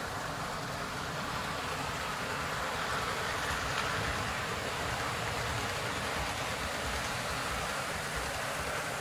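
Model railway trains running on the layout: a steady rumbling hiss of wheels on the track and small motors, a little louder in the middle.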